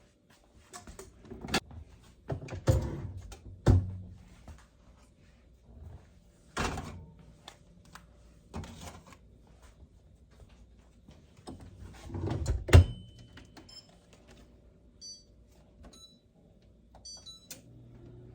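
Metal tray and oven door knocking and clattering as a meal tray is loaded into an oven, ending in a sharp bang of the door shutting. This is followed by several short electronic beeps from the oven's control panel.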